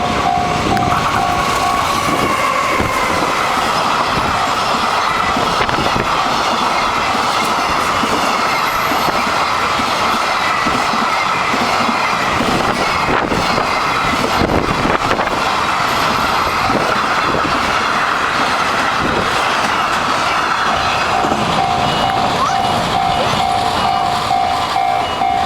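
Freight train hauled by a JR EF210 electric locomotive passing over a level crossing: continuous rumble and clickety-clack of the wagons' wheels over the rail joints. The crossing's warning bell rings in a steady repeating tone, clear at the start and again in the last few seconds.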